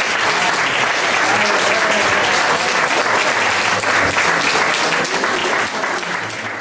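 Audience applauding: many hands clapping together, fading out near the end.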